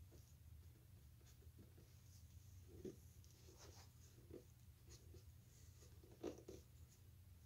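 Faint, scattered scratchy creaks of a hand gimlet being twisted into mahogany to bore a pilot hole for a hinge screw. The clearest creaks come about three seconds in and again just after six seconds.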